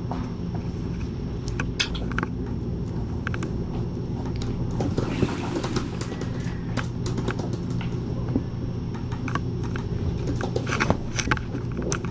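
Steady low mechanical hum filling the room, with scattered light clicks and taps over it.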